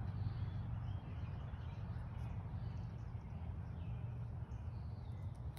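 Birds chirping faintly and intermittently over a steady low rumble of outdoor background noise.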